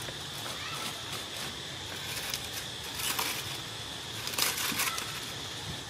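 Dry leaves crackling and rustling as the monkeys shift on the leaf litter, with louder crunches about three and four and a half seconds in, over a faint steady high hum.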